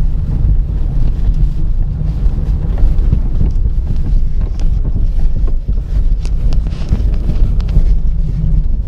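Inside a Honda Mobilio Spike's cabin while driving: steady road and engine rumble, with scattered short sharp knocks from behind the instrument panel near the steering wheel. The owner calls the knocking terrible and cannot tell what causes it.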